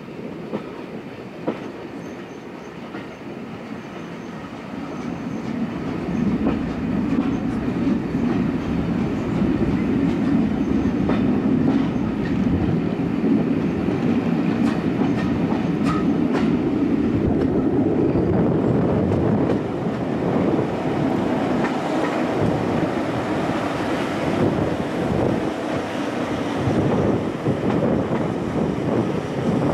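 Steam-hauled passenger train running on the rails, heard from an open carriage window: a steady rumble of wheels with scattered clicks, growing louder about six seconds in as it gets under way out of the station.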